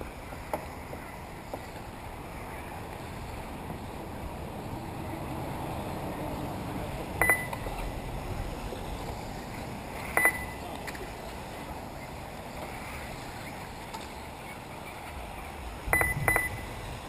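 Steady hiss of 1/10 scale 4WD RC buggies running on a dirt track, broken by short electronic beeps from the race's lap-timing system: one about seven seconds in, one about ten seconds in, and two in quick succession near the end.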